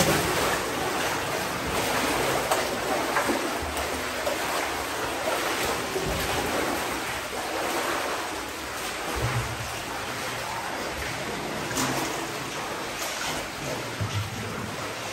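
Water sloshing and splashing around people's legs as they wade through a flooded cave passage: a steady churning wash with small splashes.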